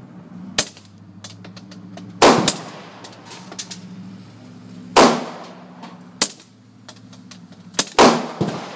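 AR-15 pistol with a Troy Claymore muzzle brake firing three single shots about three seconds apart, each followed by a long ringing echo under a corrugated-metal roof. Fainter sharp cracks come in between.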